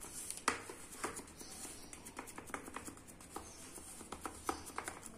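Wooden spatula pressing and smoothing a thick, soft sweet dough into a plastic box: faint, irregular taps and scrapes, the clearest about half a second and a second in.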